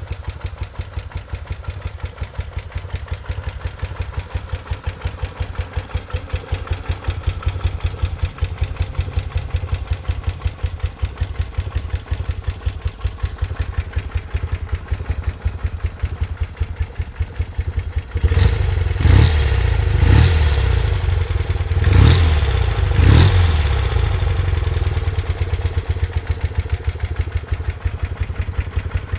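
1973 BMW R75/5's air-cooled boxer twin idling with an even, steady beat. About 18 seconds in it picks up, with four quick blips of the throttle over the next five seconds, then it settles back to idle.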